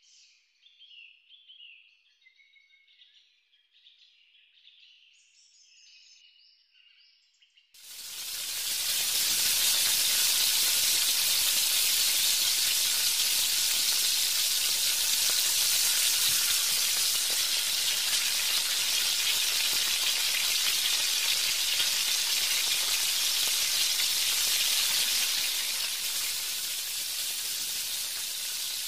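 Gram-flour-battered cauliflower pakoras deep-frying in hot oil: a loud, steady sizzle that starts suddenly about eight seconds in, after a few near-quiet seconds with faint high chirps.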